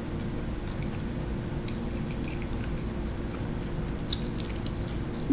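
Mouth sounds of someone eating noodles from a fork, chewing with a few faint clicks, over a steady low hum.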